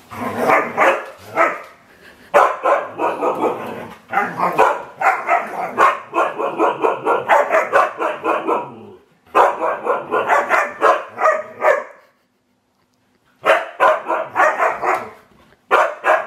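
Dogs play-fighting with long runs of rapid, excited barking, several barks a second, broken by a short silent gap about twelve seconds in.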